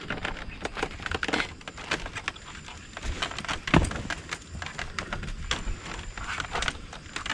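Irregular footsteps and short wooden knocks and scuffs as a person steps up onto a notched log ladder.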